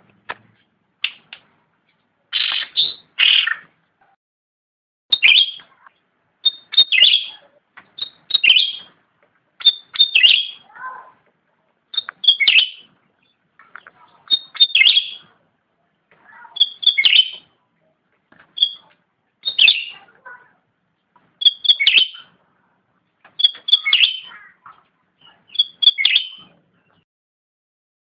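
Cucak rante songbird singing in full voice: short, high chirping phrases repeated every second and a half to two seconds, with brief pauses between them.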